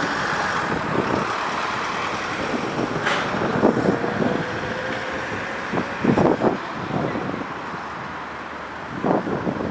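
Fire department pump truck's engine running: a steady vehicle noise with a faint tone gliding slowly upward through the middle and a few short louder bursts.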